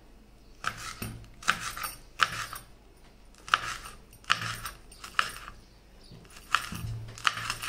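Kitchen knife cutting green chillies on a chopping board: about nine sharp, uneven strokes, roughly one every second or less.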